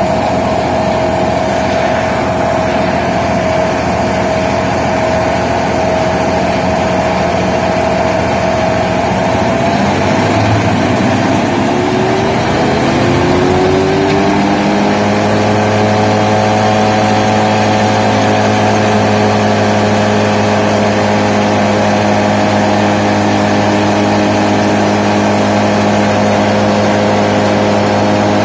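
Morbark M6 wood chipper's engine running steadily; about ten seconds in its pitch dips and then climbs over several seconds, settling at a new steady speed.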